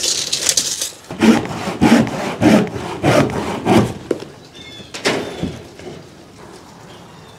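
Handsaw cutting wood in even back-and-forth strokes, about five strokes a little over half a second apart, stopping about four seconds in.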